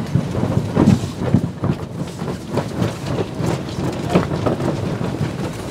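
Strong wind rushing and buffeting the microphone on a sailing yacht in a force six to seven, with irregular short knocks and flaps through it as the boat turns through the wind to heave to.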